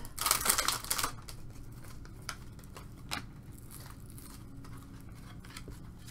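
Stadium Club card-pack wrapper crinkling as it is pulled open, loud for about the first second. Then quiet ticks and slides of trading cards being shuffled by hand.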